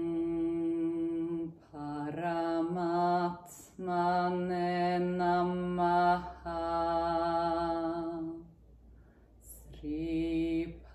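Slow meditative mantra chanting: a voice holds long sustained notes in short phrases, some with small pitch wavers, with brief pauses between phrases.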